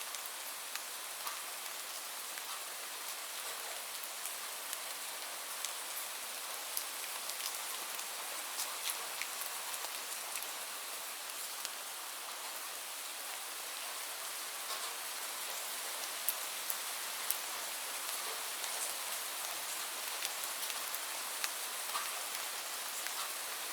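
Steady rainfall: an even hiss of rain with many separate drops ticking sharply on a hard surface.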